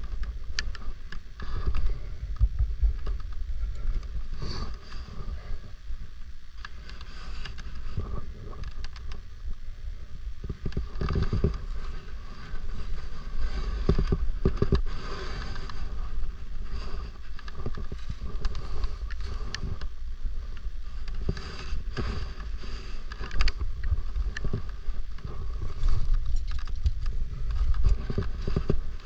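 Wind buffeting the microphone in an uneven rumble, with scattered clicks and rustles throughout.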